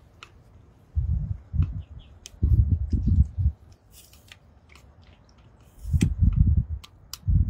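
Irregular low rumbling bursts on the phone's microphone, with scattered light clicks and rustles as a cast net is gathered up by hand.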